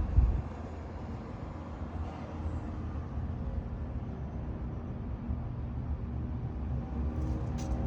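Steady low rumble of outdoor background noise, with a brief click near the end.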